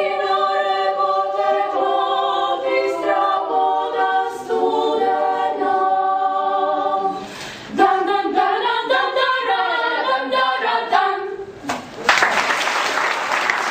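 Klapa ensemble singing a cappella in several-part close harmony, with a short break in the phrase about seven and a half seconds in. The song ends about twelve seconds in and applause breaks out.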